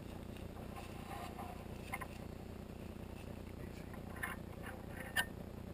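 Quiet steady background with a few soft, short rustles and clicks close by: one about two seconds in, a few around four seconds, and a sharper click about five seconds in.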